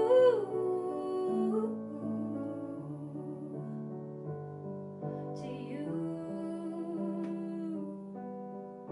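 Kawai digital piano playing a soft, slow ballad accompaniment, with a woman's voice singing long held notes over it.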